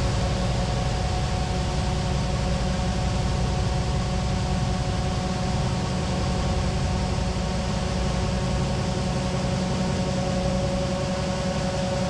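Combine harvester running as it unloads shelled corn through its auger into a moving grain cart: a steady machine drone with a held whine and an even hiss.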